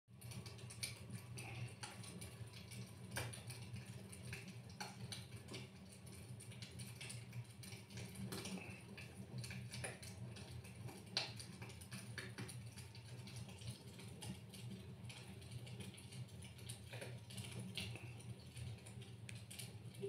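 Wood fire crackling in a fireplace, with irregular sharp pops and snaps over a steady low hum.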